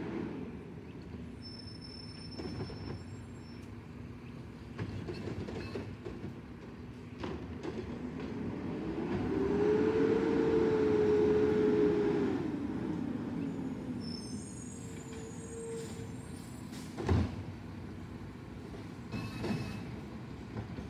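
Garbage truck running along the street. About nine seconds in it swells to a louder, steady whine for several seconds, then settles back. A sharp clunk comes a few seconds later.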